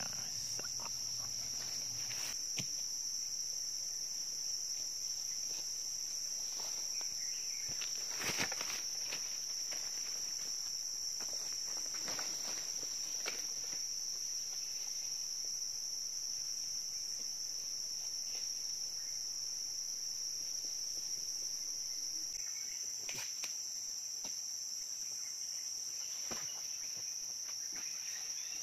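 A chorus of insects shrilling in a continuous high-pitched drone. A few brief knocks or rustles cut through it, the loudest about eight seconds in.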